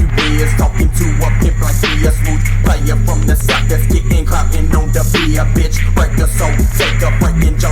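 Hip hop music: a heavy bass line under a steady drum beat, with a short melodic riff repeating over it.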